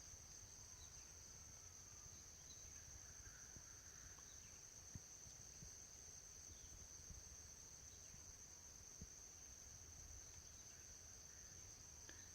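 Faint forest insects, crickets or cicadas, making a steady high-pitched drone, with a few faint isolated taps.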